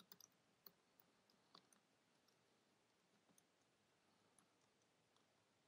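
Near silence with faint, irregular computer keyboard key clicks from typing a command, most of them in the first two seconds and a few more later on.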